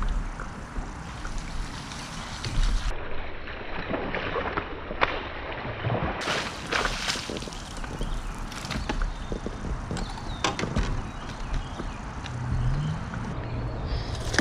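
Scattered knocks and clunks on a fishing boat's deck over a steady rush of wind and water.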